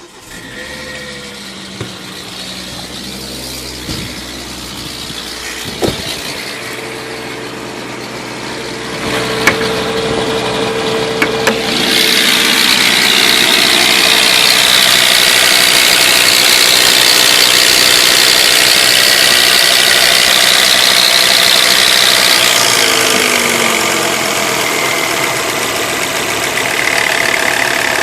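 Volvo S80 2.5T's turbocharged five-cylinder engine starting and idling, with a few sharp clicks. About twelve seconds in, a loud high-pitched noise joins the idle, holds for about ten seconds, then eases off; this is the strange sound the engine makes on start-up.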